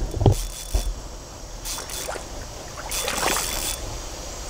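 Water splashing and sloshing in short surges as a hooked common carp thrashes at the surface of a shallow river, the biggest surge about three seconds in.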